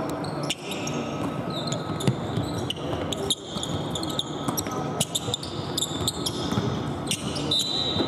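Basketball dribbled and bounced on a hardwood court, with sneakers squeaking in short, high chirps.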